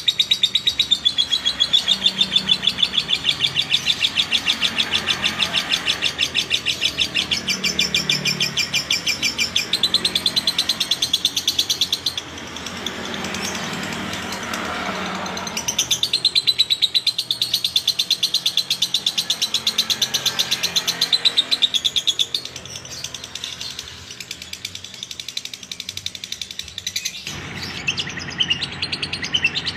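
Lovebird 'ngekek': a long, fast chattering trill of rapid repeated high notes. It twice falls back to softer twittering, about halfway through and again later, before picking up.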